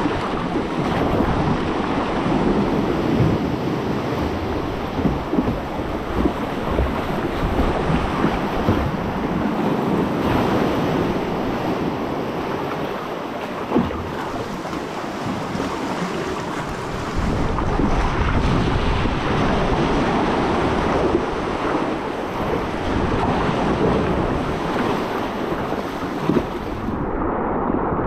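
Choppy sea sloshing and splashing around a sit-on-top kayak and breaking against rocks, with scattered sharp splashes and wind buffeting the microphone. The wind rumble gets heavier about two-thirds of the way through, and the sound turns duller just before the end.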